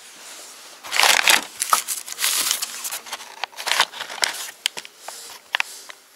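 Plastic bags and newspaper wrapping crinkling and rustling as items are handled in a tool chest, with a few short sharp clicks near the end.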